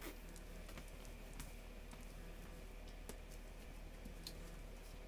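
Quiet room tone with a steady low hum and a handful of faint, scattered light clicks and taps.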